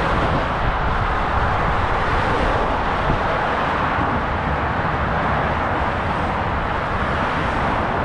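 Steady, unbroken rush of dense motorway traffic, tyres and engines blending into one continuous roar with no single vehicle standing out.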